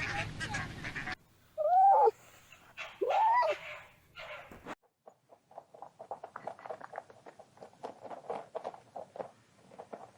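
A dog giving two whining yelps that rise and fall in pitch, about two and three seconds in, after a second of geese honking that cuts off abruptly. Faint rapid ticking follows for the second half.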